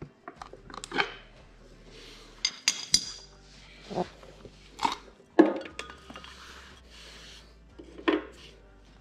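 Irregular metal clanks and clinks as the unbolted steel rear main seal backing plate is worked loose by hand from a Ford 5.4 V8 engine block, including a quick ringing clatter around three seconds in and the loudest clank about five and a half seconds in.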